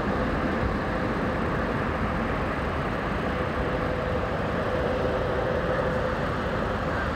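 Steady rumbling background noise with a faint hum that swells slightly in the middle.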